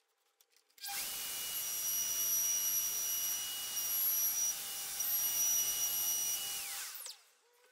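Festool OF2200 plunge router running at speed as it cuts a dado in plywood along a guide rail: a steady high whine over a hiss. It starts suddenly about a second in, and near the end the whine falls in pitch as the motor is switched off and winds down.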